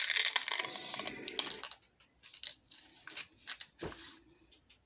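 Makeup cases and tools being handled. A scratchy rustling lasts for about the first second and a half, then comes a scattered run of light clicks and taps from plastic cases and a compact.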